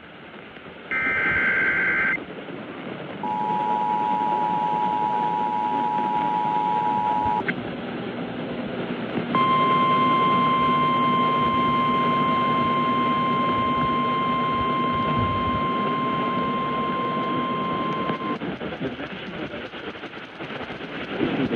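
Emergency Alert System tones received over a weather radio with steady static hiss. About a second in comes a brief warbling SAME data burst. Next the two-tone attention signal sounds for about four seconds, then after a short gap the single-pitch NOAA Weather Radio warning alarm tone runs for about nine seconds, announcing a weather warning about to be read.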